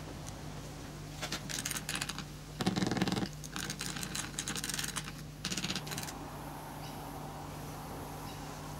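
Bursts of rapid light tapping and rattling as a metal screw set in a plastic 3D-printed pattern is rapped and wiggled to loosen the pattern from the packed foundry sand of the mould, the loudest about three seconds in.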